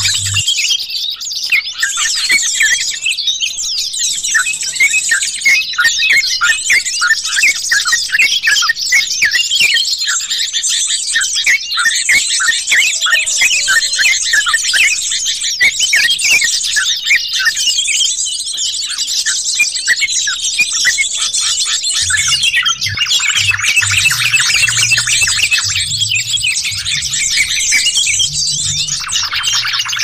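Bird-trapping lure recording of yellow-vented bulbuls (trucukan) and jogjog birds: many fast, overlapping chirping and chattering calls at once, a noisy flock sound meant to draw wild birds in. A low hum joins about two-thirds of the way through.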